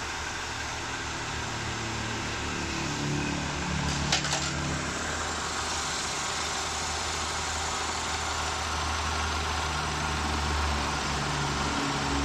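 Toyota 14B four-cylinder diesel engine running steadily at idle, with a couple of sharp clicks about four seconds in.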